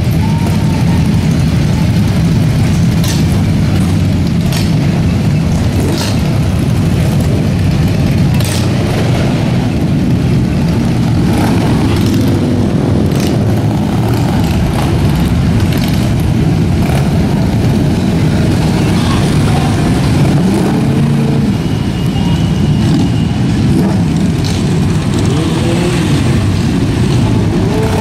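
A pack of motorcycles, mostly sport bikes, riding past together, many engines running loud at once, with riders revving up and easing off now and then in the second half.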